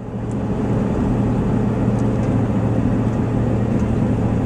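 Car driving on a road, heard from inside the cabin: a steady low engine hum with tyre and road noise, rising in level over the first second.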